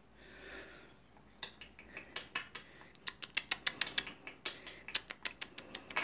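African grey parrot making a rapid run of sharp clicks, sparse at first and then quickening to about six a second after about three seconds.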